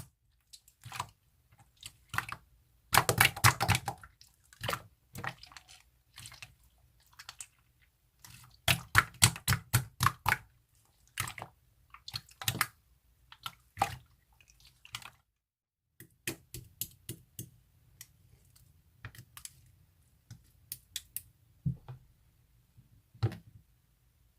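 Slime being squished and poked by hand, making irregular popping and clicking sounds in dense flurries about three and nine seconds in, with a brief silent break about fifteen seconds in.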